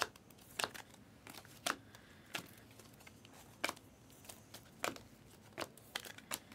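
Trading card packs and cards being handled, with wrapper crinkles and a string of short, sharp flicks as cards are slid and flipped one by one, roughly one every half second to second.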